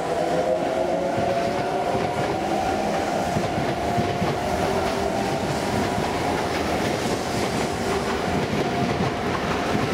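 Sotetsu 8000 series electric commuter train pulling out of a station, its cars rolling past close by with a steady motor whine and wheels clicking over rail joints as it picks up speed.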